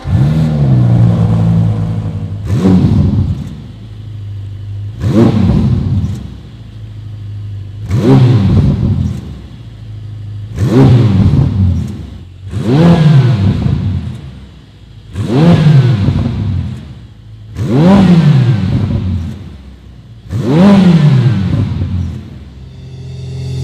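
Ferrari F8 Spider's 3.9-litre twin-turbo V8 being free-revved while parked: about nine sharp blips of the throttle, one every two to three seconds, each rising quickly and falling back to idle, heard from the exhaust.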